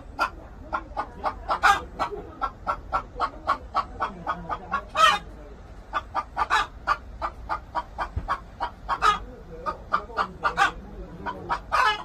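Korean native chickens clucking in a steady run of short calls, about four a second, with a few louder calls standing out.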